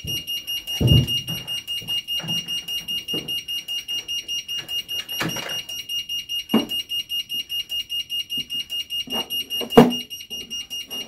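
The alarm of a Nemtek Wizord 4 electric fence energizer system sounding as a rapid, even, high-pitched beeping of about five beeps a second. A few low knocks come over it, the loudest about ten seconds in, as the energizer's keypad is pressed.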